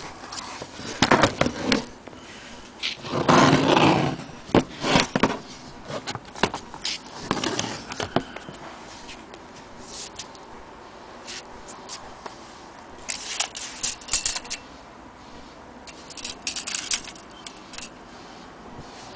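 Handling noise from the accordions and camera being moved about: irregular scrapes, rubs and knocks, with a longer rustle about three seconds in and clusters of sharp clicks later on. No accordion notes are played.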